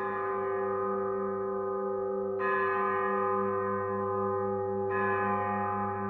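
Bronze bell struck three times, about two and a half seconds apart. Each strike rings on over the one before, with a slowly pulsing low hum beneath.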